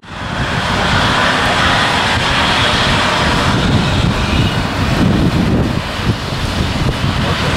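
Kawasaki C-2 military transport's twin turbofan engines running as it taxis: a loud, steady jet rush and hiss over a low rumble.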